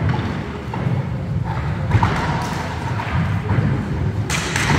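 Roller-hockey play on a wooden sports-hall floor: inline skate wheels rumbling, with stick and ball knocks, one sharp knock about two seconds in, and a brief scraping hiss near the end.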